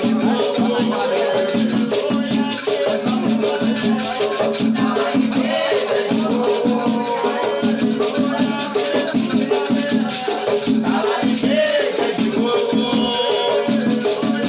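Batuque ceremonial music: a drum beating a steady fast rhythm with a shaken rattle, and voices singing over it.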